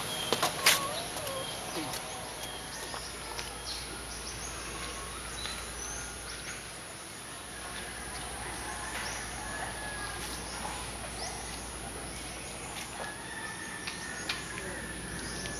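Outdoor ambience: scattered short bird chirps over a steady background hiss, with a few sharp clicks in the first second.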